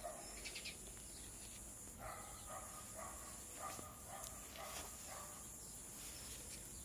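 Quiet outdoor garden ambience: a steady high insect drone, like crickets, with faint scattered bird calls.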